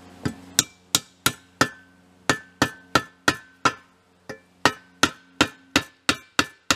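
Hammer driving a nail through the pin hole of a shovel's steel socket into the wooden handle: a quick series of sharp strikes, about three a second, each with a short metallic ring, with brief pauses about two and four seconds in. There is no pilot hole in the wood, so the nail meets a good amount of resistance.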